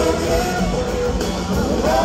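Live rock band playing through the PA: electric guitars, keyboards and drums, with singers at the microphones.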